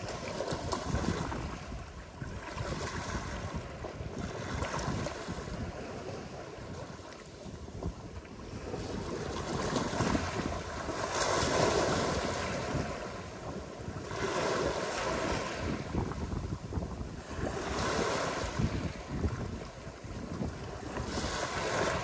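Ocean surf breaking on a beach: waves wash in one after another every few seconds, each swelling and fading, the loudest about halfway through. Wind buffets the microphone throughout.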